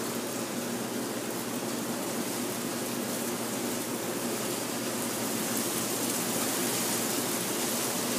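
Steady, even background noise with a faint low hum underneath; no speech.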